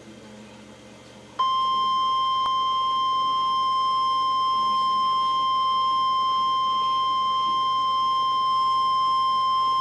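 Emergency alert warning tone: a single steady electronic tone, the 1050-hertz National Weather Service warning alarm tone, that starts abruptly about a second and a half in and holds unbroken. It signals that a tornado warning is about to be read.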